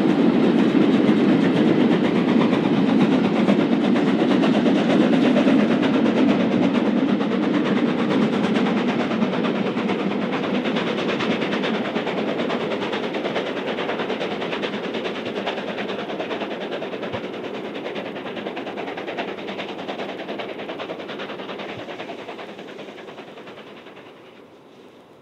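Steam locomotive hauling a freight train, its running and the rolling of the wagons fading steadily as the train draws away.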